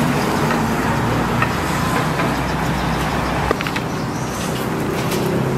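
Road traffic with a motor vehicle engine running close by, a steady low hum. A few light clicks are mixed in, and the rumble eases off about halfway through.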